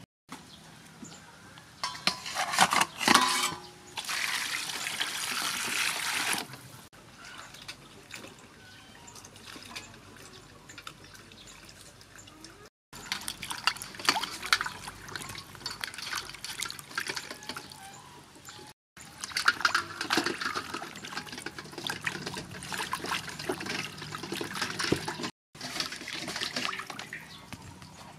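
Water sloshing and splashing in a stainless-steel bowl as raw chicken drumsticks and eggs are washed by hand. It comes in several stretches separated by abrupt breaks.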